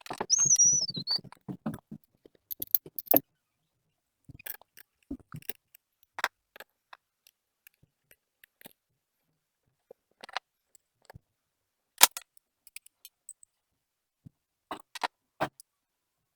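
Scattered clicks, taps and rustles of an unboxing: the box, packaging and parts being handled by hand, with a short high squeak about half a second in.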